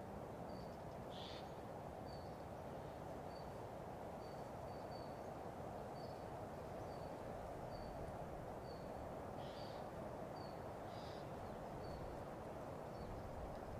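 A small bird repeating a short, high call note about twice a second over a steady low background rush.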